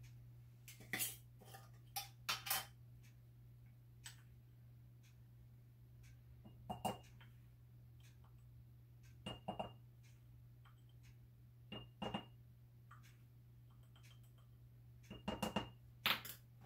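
A metal measuring spoon clinking and tapping against a small glass jar as spice is spooned in: a dozen or so short, light clinks, some ringing briefly, in loose clusters, the busiest near the end. Under them runs a low steady hum.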